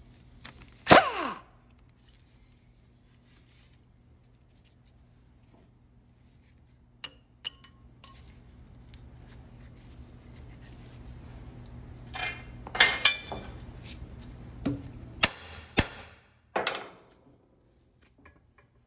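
Metal tools and parts clinking and knocking as the bolts and bearing strap are taken off a truck drive axle's U-joint yoke. There is a louder clatter about a second in and another cluster about two-thirds of the way through, with single sharp clicks between.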